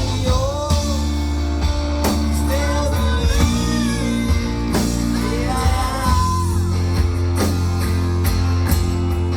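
Live rock-style band music: drums, a heavy sustained bass and guitar, with a high melody line that swoops and glides between notes over them.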